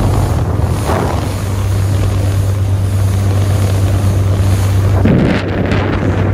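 Motorboat under way: a steady engine drone under wind buffeting the microphone and the rush of water, with two brief surges of noise, about a second in and again about five seconds in.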